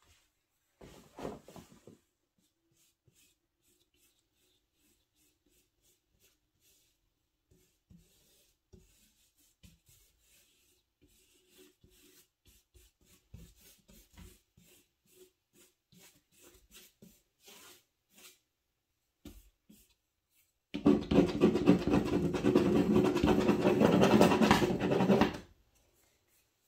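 Faint, light scratching of a water-soluble crayon on paper in quick strokes, then a loud steady rushing noise for about four and a half seconds that starts and cuts off abruptly near the end.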